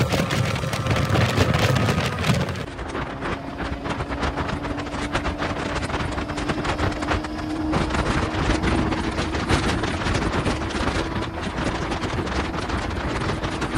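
Motorcycle riding at road speed: wind buffeting the microphone over a steady engine hum. The wind rush eases a little about three seconds in, and the engine note rises slightly and then holds.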